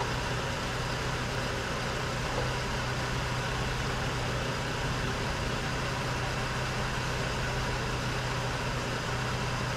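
Chevrolet Trailblazer's straight-six engine idling steadily, warmed up.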